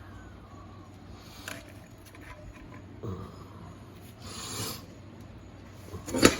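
Scattered rubbing and scraping of hand-worked transmission parts as seals are fitted onto the 4L60E low/reverse piston with the fingers, with a sharp knock near the end.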